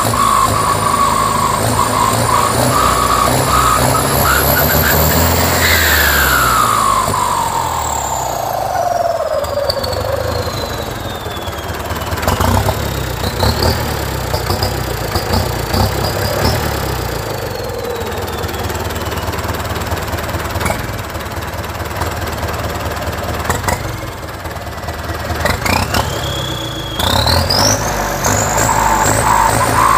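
Turbocharged Ford 6610 tractor diesel engine running and being revved through a tall straight exhaust stack, its turbo whine rising in pitch as the revs climb and falling away as they drop, once in the first third and again rising near the end.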